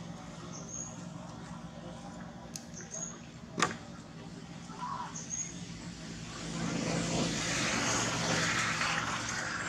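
Outdoor traffic ambience: a steady low engine hum, with a louder wash of vehicle noise building about two-thirds of the way through. A few short high chirps and one sharp click about three and a half seconds in.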